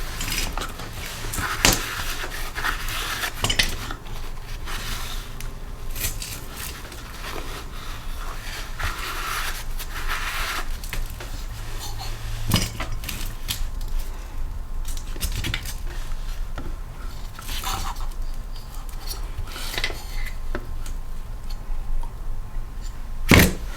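Small metal parts and hand tools clinking, tapping and scraping against the engine and workbench in scattered, irregular knocks, with a louder clank near the end.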